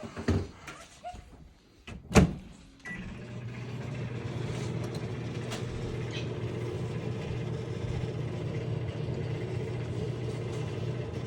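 A few light clicks and one sharp click, then, about three seconds in, a microwave oven starts and runs with a steady hum.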